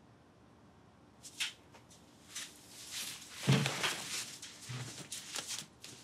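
Soft rustling and light knocks of a backpack and bedding being handled and set down on a bunk, with a short low voice sound, a grunt or sigh, about three and a half seconds in.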